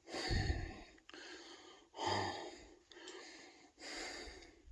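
A man breathing hard, with a heavy sighing breath about every two seconds, out of breath and shaken from slipping and falling into a bog.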